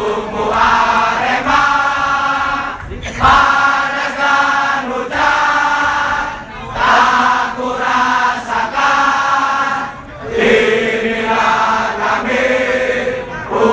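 A crowd of football supporters singing a chant together, in sung phrases of about three seconds each with a short break between them.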